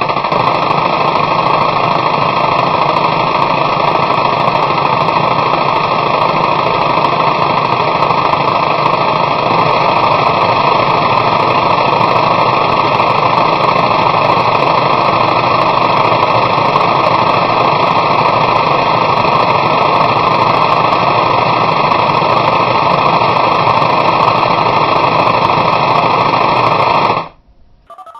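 A loud, steady, harsh buzzing noise like broadcast static, unbroken until it cuts off abruptly about a second before the end.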